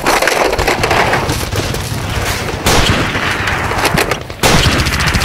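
Rapid machine-gun fire sound effects in continuous bursts, with a fresh, louder burst starting about two and a half seconds in and another just after a brief dip near the end.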